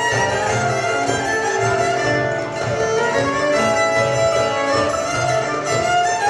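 Violins playing a traditional Cypriot folk tune in a small ensemble, the melody carried by the bowed strings over a low accompaniment, continuing without a break.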